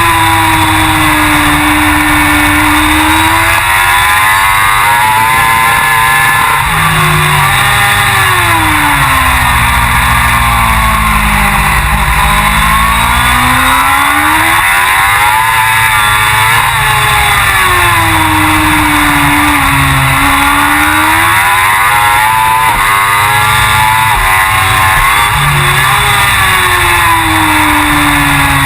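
Suzuki GSX-R1000 superbike's inline-four engine at racing speed, its note climbing and dropping back again and again as the bike accelerates and slows through the corners.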